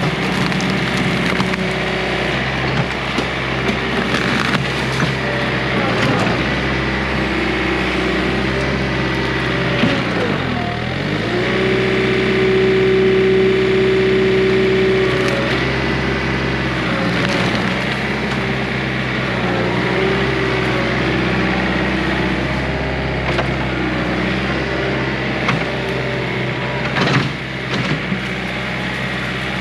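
John Deere 110 tractor loader backhoe's diesel engine running under load while pushing over a small tree, with wood cracking and splintering. About ten seconds in the engine note dips briefly as it lugs, then a steady higher whine holds for a few seconds.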